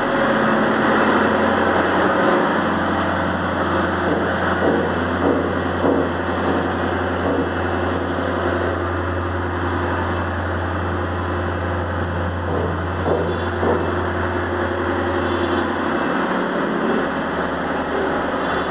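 A motor or machine running steadily, with a low hum that comes in about two seconds in and stops near the end, and a few light knocks.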